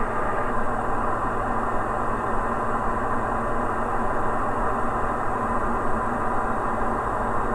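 Steady cruise drone of a Diamond DA40 NG's Austro AE300 turbo-diesel engine and propeller, heard inside the cabin, an even hum with steady tones and no change in pitch.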